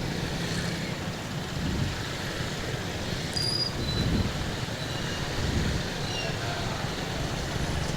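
Busy city street ambience: a steady wash of road traffic noise.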